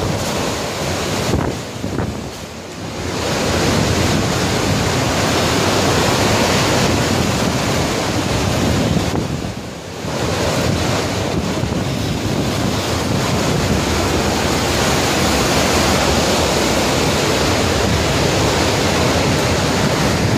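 Hurricane-force wind and driving rain in a loud, steady rush, buffeting the microphone. The gusts ease briefly twice, about two seconds in and again just before ten seconds, then pick up again.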